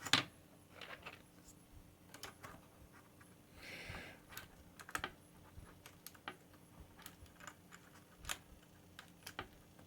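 Scattered faint plastic clicks and taps of keycaps being pushed onto Cherry MX switch stems and keys pressed, with a brief rustle about four seconds in.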